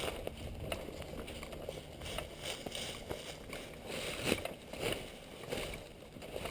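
Footsteps crunching through dry fallen leaves and twigs on a forest floor, a crunch about every half second.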